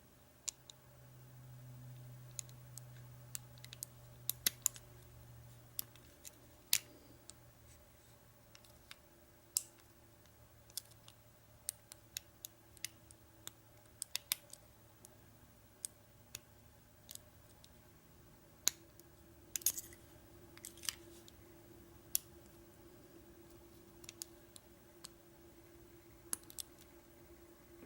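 Lock pick and tension wrench working inside the keyway of an American Lock 1100 padlock, with light metallic clicks at irregular intervals, some in quick clusters.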